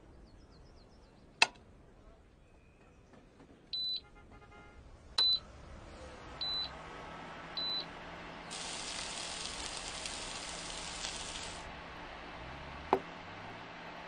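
Touch-control panel of a VonShef twin digital induction hob beeping as its buttons are pressed: four short, high beeps over about four seconds. There is a sharp click before them, a steady hiss for about three seconds after them, and another click near the end.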